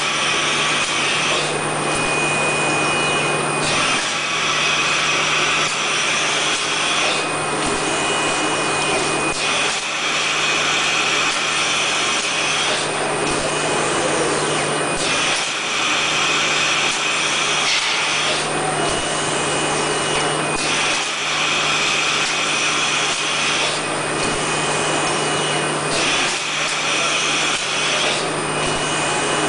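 Mechanical clamshell flat screen printing machine running, a steady motor hum under a mechanical hiss that changes in a repeating cycle about every five to six seconds as the machine goes through its print strokes.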